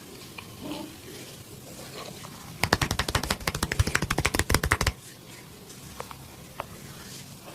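A fast run of sharp hand slaps from percussive massage strikes, about a dozen a second for roughly two seconds, starting a few seconds in. A couple of faint single clicks follow.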